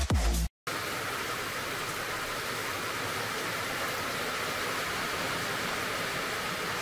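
Steady rain falling: an even, unbroken hiss. A short tail of electronic music cuts off about half a second in.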